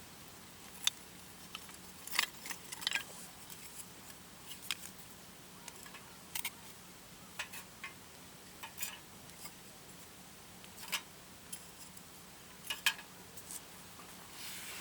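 Scattered light clicks and clinks of small hard objects being handled, coming irregularly over a faint steady hiss.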